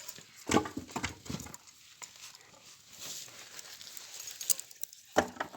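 A few sharp wooden knocks and clacks, a cluster about half a second to a second and a half in and another near the end: pieces of firewood being handled and stacked into a bonfire.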